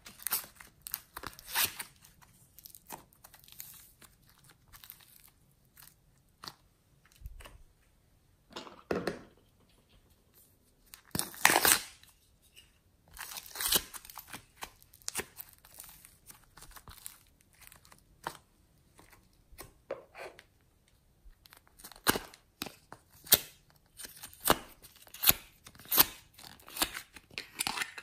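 Soft foam clay being pulled and torn apart by hand close to the microphone: irregular crackling, squishy tears, with the loudest tears about eleven seconds in and a busy run of them near the end.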